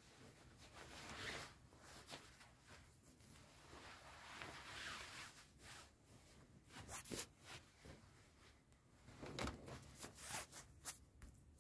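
Faint rustling of cloth trousers being pulled off the legs and of legs shifting on a bed, with a few sharp taps and knocks in the second half.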